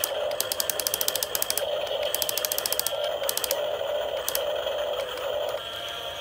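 Electric gear motors of a Huina RC excavator whining, with several runs of rapid ratcheting clicks from its gears as the upper body swings round.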